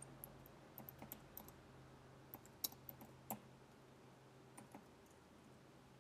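Faint, scattered keystrokes on a computer keyboard typing a short line of text, with a faint steady low hum underneath.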